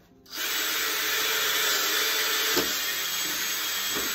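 Cordless drill running steadily as its bit bores a hole through a wooden board for a dowel. It starts about a third of a second in and stops right at the end.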